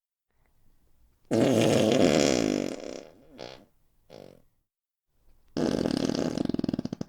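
Fart sound effects: a long, loud fart about a second in, dropping in pitch, followed by two short puffs, then another long fart near the end that breaks into a rapid sputter.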